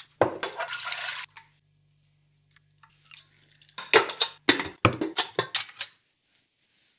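A stainless-steel steamer basket and its wire handle clanking against a steel pot: a short scrape at first, then a quick run of about eight sharp metal knocks about four seconds in.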